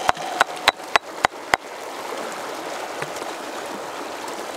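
Mountain stream rushing over rocks. In the first second and a half there is a quick run of about six sharp clicks.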